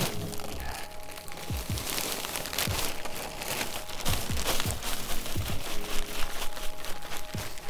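Plastic potting-soil bag crinkling and rustling as it is handled and shaken out into a wheelbarrow, with many irregular crackles.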